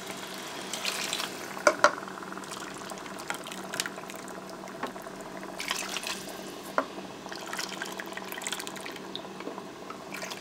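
Warm water poured from a measuring cup into a rice cooker pot of cooked tomatoes, peppers and onions, cup after cup, with a few sharp clicks of the cup against the pot.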